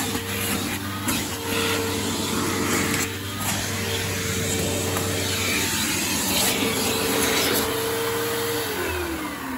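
Riccar 8905 bagged vacuum cleaner running with a steady hum, then switched off near the end, its motor winding down in a falling whine.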